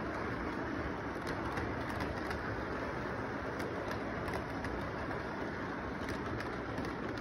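Lionel model train rolling past on its track: a steady running rumble with light, irregular clicks of the wheels over the rail joints, mixed with steady background noise.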